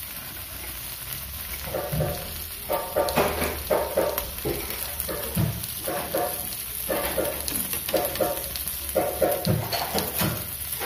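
Chicken pieces sizzling on a ridged stovetop grill pan, with metal tongs knocking and scraping as the pieces are turned. A short pitched sound, like a voice or an animal call, repeats about once a second in the background.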